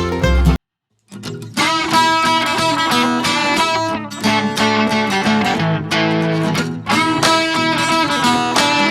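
Background music on plucked guitar. It cuts out completely for about half a second, then a new guitar piece starts up.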